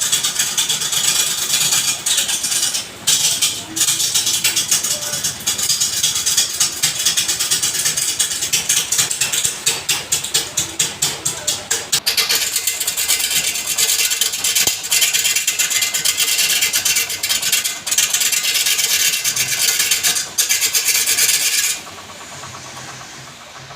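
Wood being cut or scraped on a spinning lathe blank: a loud, hissing rasp with a fast, even flutter. It stops suddenly about 22 seconds in, leaving a quieter background hum.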